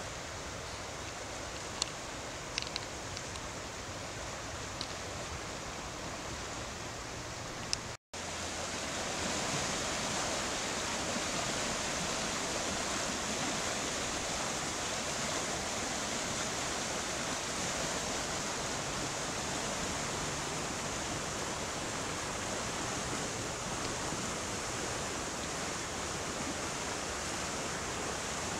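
Floodwater rushing steadily through a swollen creek, a continuous noise of turbulent water. It drops out for an instant about a third of the way in and comes back a little louder, with a few faint short high clicks before that.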